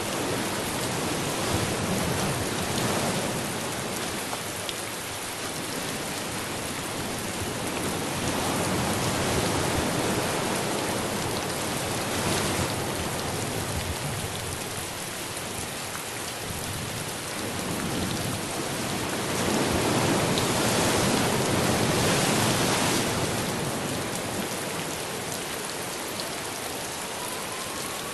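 Steady rain falling, a dense even hiss that swells louder twice and eases off again.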